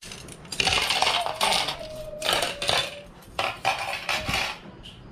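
Metal spoons and forks clinking and clattering onto ceramic plates as a table is laid, in several quick bursts, with a plate ringing briefly under the first ones.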